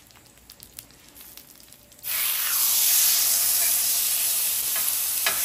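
Marinated sirloin steak laid onto a hot, smoking flat-top griddle: faint crackles at first, then about two seconds in a loud sizzle starts suddenly and keeps going steadily as the meat sears.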